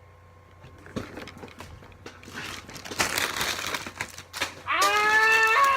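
Crinkling and rustling, like a wrapper or packaging being handled, then, near the end, a long drawn-out vocal wail that steps down in pitch.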